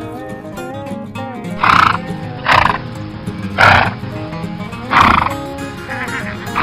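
Four short, harsh horse calls about a second apart, each lasting about a third of a second, over background music with plucked-string notes.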